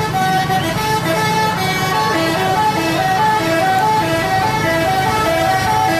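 Bus 'telolet' musical air horn playing a quick tune of short notes at changing pitches, over the bus engine running.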